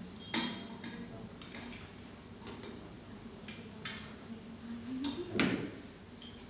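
Plastic buckles and webbing straps of a spine board clicking and clattering as the straps are fastened across a manikin, a handful of sharp clicks and knocks with the loudest about five and a half seconds in.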